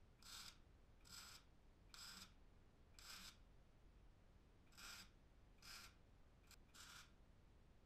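Faint scraping strokes of a hand tool, short and hissy, repeating roughly once a second with a few uneven gaps.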